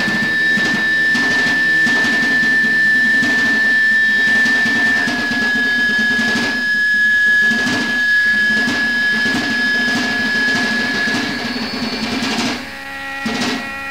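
Death-doom metal band playing on a lo-fi rehearsal tape: heavily distorted guitars and drums under a steady high whine that holds for most of the stretch. The sound thins out about 12 seconds in as the song ends.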